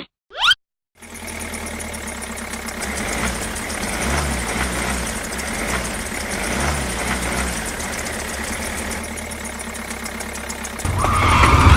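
Tractor engine sound running steadily at idle, with a low pulsing rumble, for a toy tractor moving on sand; the rumble grows louder near the end. Two short sliding whistle-like tones sound at the very start.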